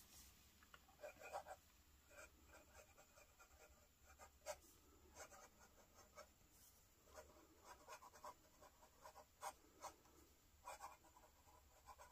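Faint scratching of a fountain pen's Jowo #6 medium steel nib writing cursive on onion skin paper, in short irregular strokes with a few sharper ticks.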